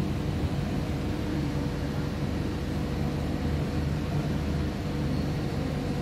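Steady low mechanical hum with a faint constant tone underneath.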